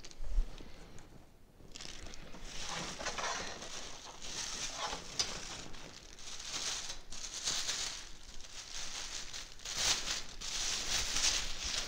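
A low thump near the start, then a clear plastic packing bag crinkling and rustling as a kettle grill part is unwrapped by hand. The crinkling starts about two seconds in and comes in uneven bursts, loudest near the end.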